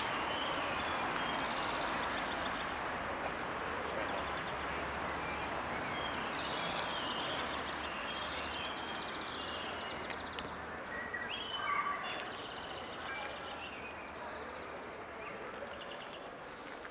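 Outdoor ambience: a steady rushing background noise with small birds chirping on and off, including a few quick trills around the middle and later on.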